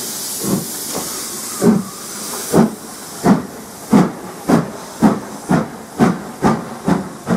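LMS Stanier 'Black Five' 4-6-0 steam locomotive 45231 starting away. Steam hisses, loudest in the first couple of seconds. Exhaust chuffs from the chimney then come steadily quicker, from about one a second to about two a second, as the engine gathers speed.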